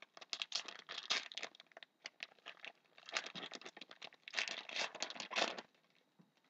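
Foil wrapper of a trading-card pack being torn open and crinkled, a run of crackling rustles that stops shortly before the end.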